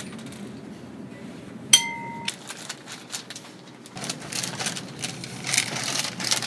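A short electronic beep, a steady tone lasting about half a second, about two seconds in; then, from about four seconds in, crackly rustling of a paper pharmacy bag being handled.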